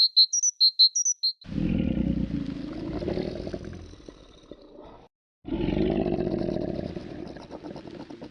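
A quick run of high bird chirps, then a lion roaring twice in long, low calls, each cut off abruptly.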